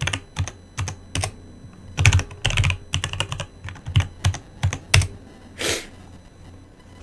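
Computer keyboard being typed on: quick, irregular clusters of key clicks for about five seconds, then a short soft hiss, after which the typing stops.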